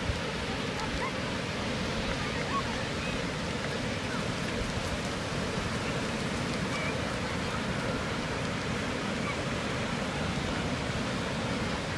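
Sea surf: a steady rush of waves washing onto the shore.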